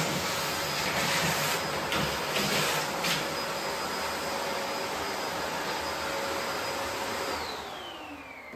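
Vacuum cleaner running with a steady rush of air and a high whine, then switched off near the end, its motor whine falling in pitch as it winds down.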